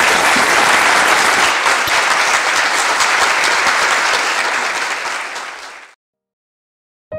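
Audience applauding after a talk, a dense patter of clapping that fades out and stops about six seconds in. A short click comes at the very end.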